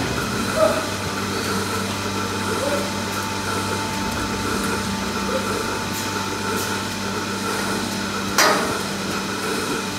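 Steady mechanical hum of milking-parlour machinery, with one sharp metal clank about eight seconds in.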